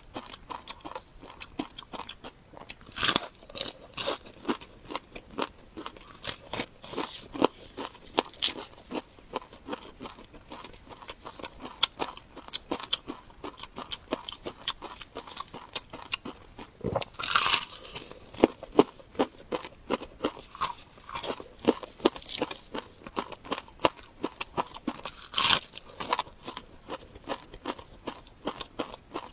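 Close-miked chewing and biting, a steady run of small wet mouth clicks broken by several louder crunchy bites.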